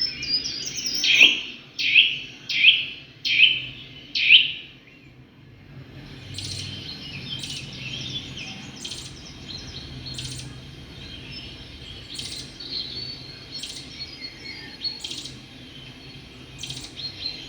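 Birds calling: a series of five loud, falling whistled notes, about one every 0.7 seconds, then after a short pause a steady run of softer, quick high chirps and twitters.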